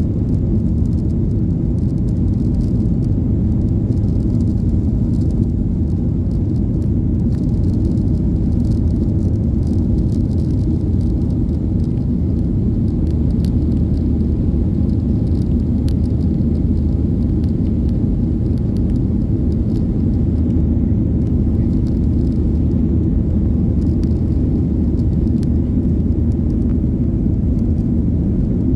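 Steady low rumble inside the cabin of a Boeing 737-800 in its climb after takeoff: the CFM56-7B jet engines and air rushing past the fuselage, heard from a window seat over the wing. A faint low hum joins in about halfway.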